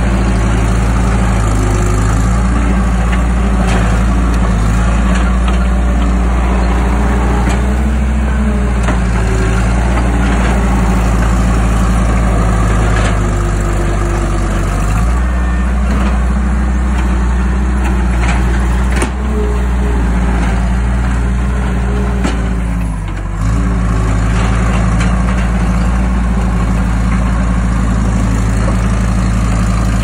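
Case 445CT compact track loader's diesel engine running steadily under load, its pitch rising and falling as the machine pushes and dumps gravel. A few metallic knocks come through in the middle, and the engine briefly drops off near the end.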